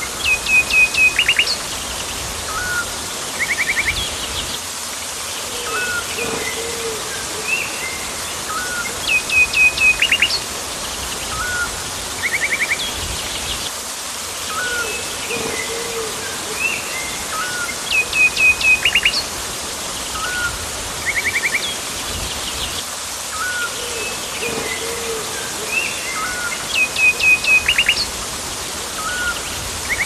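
Rainforest birds calling over a steady hiss. The same pattern repeats about every nine seconds: a run of five quick chirps, short single notes in between, and a low two-note call.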